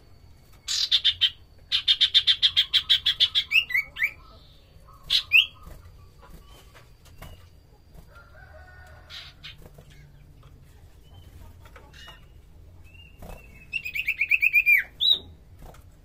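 Common iora (sirtu, cipoh) singing in its cage: fast runs of evenly repeated high, shrill notes, about eight a second, each run ending in a few down-slurred notes. One long run comes early, and a second, shorter one near the end, with soft fluttering and small movement sounds in between.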